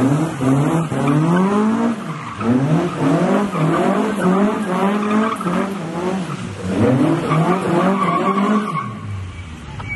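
Mk2 Ford Escort RS2000's 2.2-litre Harris-built Pinto four-cylinder engine revving hard again and again, with tyres skidding as the car slides. Near the end the revs hold steady, then drop away.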